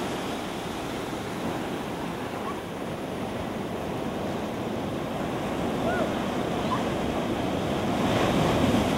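Ocean surf breaking and washing around people wading in it, a steady rush of water that grows louder near the end as the water is splashed about.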